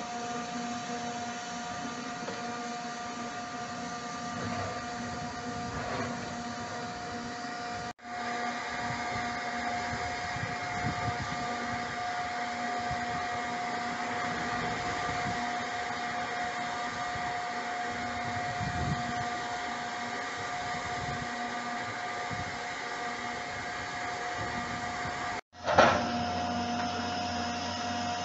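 Demolition machinery running steadily: a continuous high whine over a low, uneven rumble. It drops out briefly twice where the recording is cut, with a sharp knock just after the second break.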